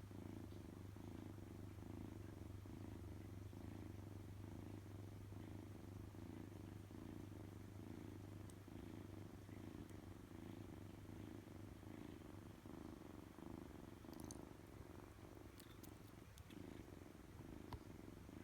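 Kitten purring steadily, a low even rumble, with a few faint ticks near the end.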